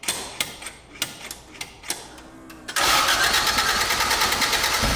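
Toyota AE86's engine on Keihin FCR flat-slide carburettors being cranked over with a few sharp knocks, then catching about three seconds in on its first start after the carb swap and running loud and steady.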